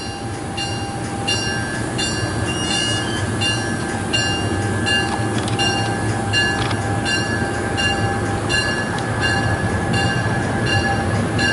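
MARC commuter train's bilevel passenger cars rolling past close by: a steady, loud rumble of wheels on rail with a faint steady whine. A beat in the higher sounds repeats about every two-thirds of a second.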